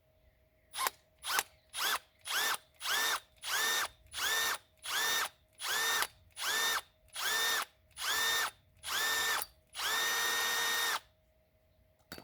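Electric drill with a 1/8-inch bit drilling a small hole in aluminium, its trigger pulsed in about a dozen short bursts, roughly two a second, each spinning up in pitch. One longer burst of about a second comes near the end.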